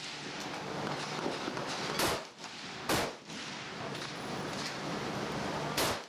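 Three rifle shots from an AR-15-style rifle, each a short, sharp report: one about two seconds in, another a second later, and a third near the end.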